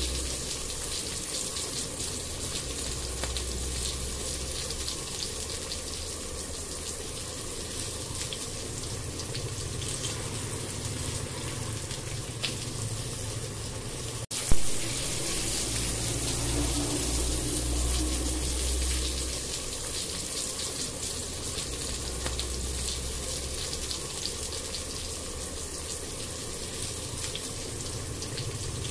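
Chopped onion and garlic sizzling in hot oil in a non-stick frying pan, stirred and scraped with a wooden spatula, over a steady low hum. A single sharp knock about halfway through.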